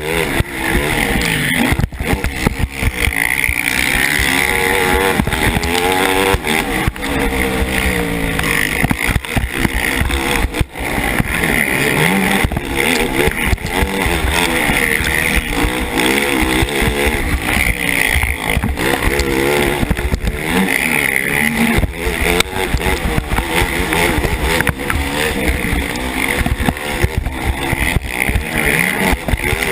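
KTM 450 SX race quad's single-cylinder four-stroke engine at full racing load, revving up and falling back again and again as the rider accelerates, shifts and lets off.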